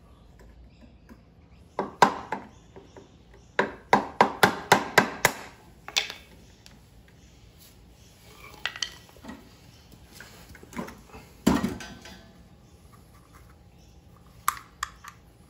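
A screwdriver prying and knocking at a lawnmower's plastic rear wheel hub as the wheel is taken off: sharp clicks and knocks, including a quick run of about four a second around four to five seconds in and a single loud knock near the end.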